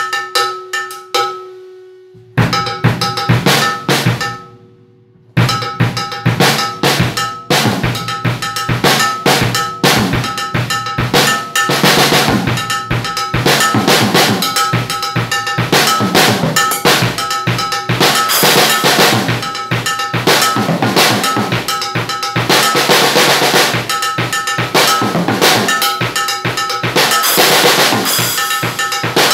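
Pearl cowbell struck with a drumstick, its ringing metallic note heard alone in a few strokes at first. About five seconds in a full drum kit joins (kick drum, snare and crash cymbals) and plays a fast groove with the cowbell ringing through it.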